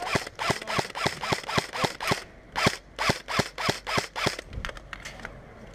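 Airsoft rifle firing rapid single shots, about four a second in a slightly uneven rhythm, each a sharp snap with a short thud; the shooting stops about four and a half seconds in.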